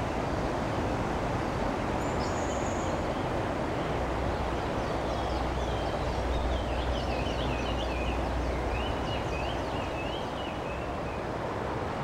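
Steady noise of heavy road traffic, with a deeper rumble swelling in the middle. A bird gives a high thin note about two seconds in, then a run of chirps and trills through the middle.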